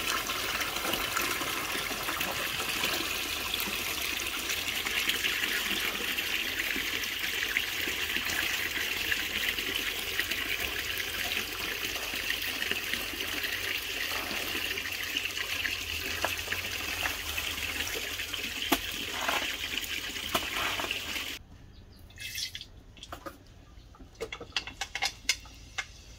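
Steady stream of water gushing from a pipe and splashing into a large metal pot. It cuts off abruptly about 21 seconds in, leaving a much quieter stretch with a few faint clicks.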